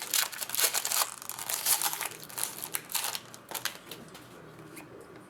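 Trading-card packaging and cards being handled, a run of quick, sharp crinkles and crackles that thins out about four seconds in.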